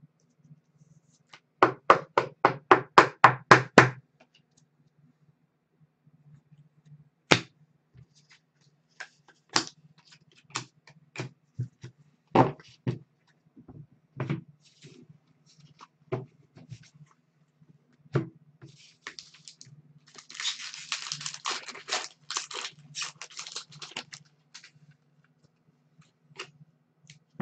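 Trading cards handled and stacked on a tabletop. A quick run of about a dozen sharp taps comes a little under two seconds in, then scattered single taps and clicks. About 20 seconds in there are a few seconds of dense rustling and clicking.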